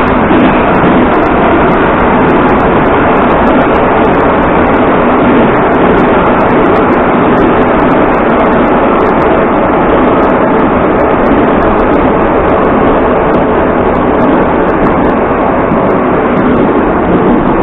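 81-740.1/741.1 'Rusich' metro train running at speed, heard from inside the car: a loud, steady roar of wheels and running gear.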